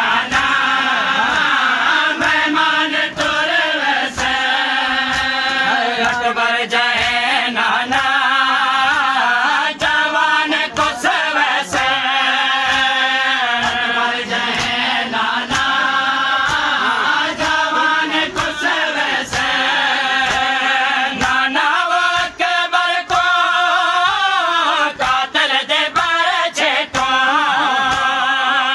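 A group of men chanting a noha lament in unison, unaccompanied, with sharp regular chest-beating (matam) slaps keeping the beat.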